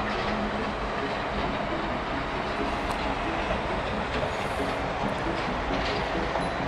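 Steady rumble of a vehicle running, with a faint low hum and no distinct knocks or changes.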